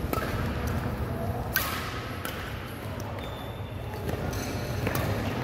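Badminton rackets striking the shuttlecock in a rally: sharp cracks just at the start, about a second and a half in (the loudest) and near the end, ringing in a large hall. Short squeaks of court shoes on the floor come between the strikes.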